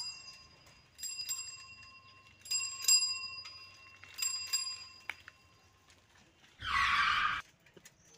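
Bicycle bell rung in quick double rings, four times over about five seconds, each ring fading out slowly. About six and a half seconds in comes a short, loud burst of noise.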